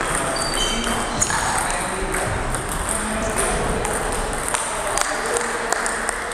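Table tennis balls clicking against paddles and tables, irregular sharp knocks from several tables at once, over background chatter in a large gym.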